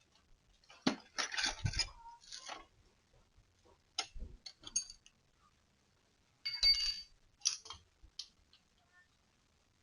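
Clinking and clattering of small hard objects being handled, in three short bursts.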